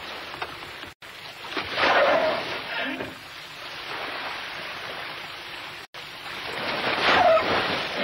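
Rough sea waves splashing and surging against a ship's side and boarding ladder, with two louder rushes of water, about two seconds in and near the end.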